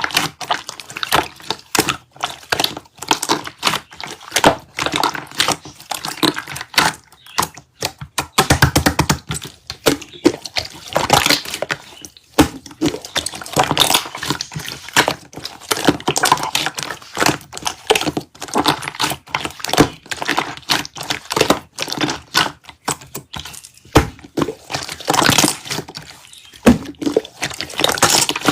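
Slime being squished and pressed by hand, a dense run of wet crackles, clicks and small pops.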